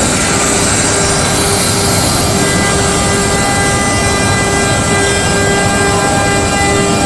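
ATC CNC router running steadily: a constant spindle whine of several steady tones over dense machining noise, with no pauses or changes.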